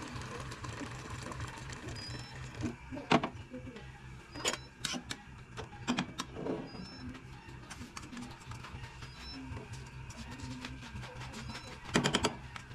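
Water poured from a kettle into a pot of stew, then a slotted metal ladle clinking and knocking against the steel cooking pot as the stew is stirred and rice is added. The clinks are scattered, with the loudest at about 3 seconds in and a cluster near the end, over a low steady hum.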